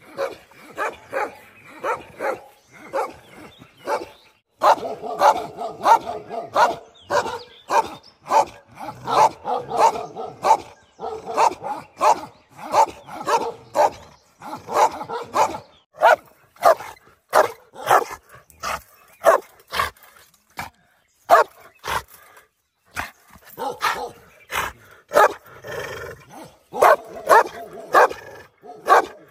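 Shepherd dog barking over and over, about two barks a second, with brief pauses about four seconds in and again about three-quarters of the way through.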